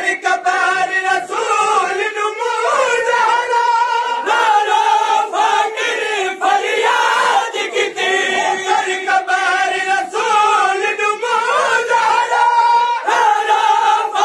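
A noha recited in Saraiki by a lead reciter and chanted by a crowd of men, voices only without instruments.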